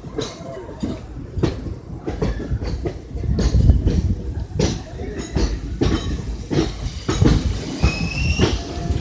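Train running on the track, its wheels clattering irregularly over rail joints above a low rumble, with a brief high squeal near the end.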